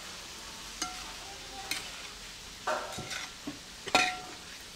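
A spatula stirring raw prawns through masala in a large metal pot, knocking and scraping against the pot about once a second, some strokes leaving a brief metallic ring, over a steady sizzle.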